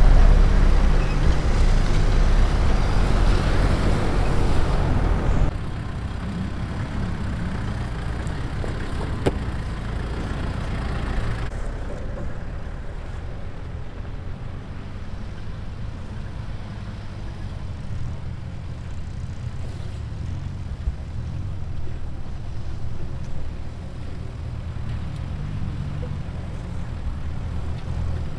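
Rushing river water with wind on the microphone for the first few seconds, then off-road 4x4 engines running at low revs as the vehicles crawl over rocks.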